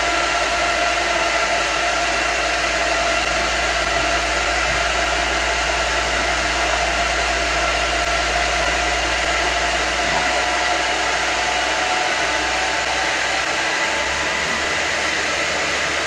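Motor of an electric pig-feed delivery cart running steadily: a constant whine over a rushing noise as it moves feed out through its pipe and hose.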